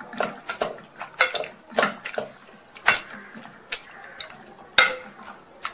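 A hand masher pounding soft cooked vegetables in an aluminium pressure cooker. It makes repeated wet squelches and knocks against the pot's base, irregular and about two a second, with a couple of louder knocks.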